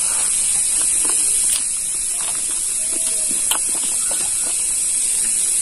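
A steady high-pitched hiss, with a few faint wet clicks and chewing sounds from gnawing meat off a pig trotter.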